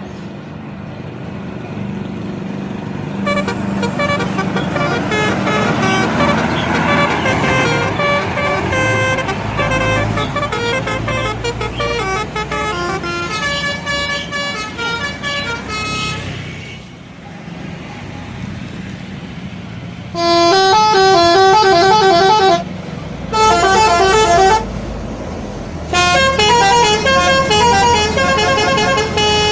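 Bus telolet horn, a multi-trumpet air horn, playing quick melodic note sequences over a bus engine's rumble. The horn grows louder and then fades out, and after a short lull three louder blasts of the tune follow.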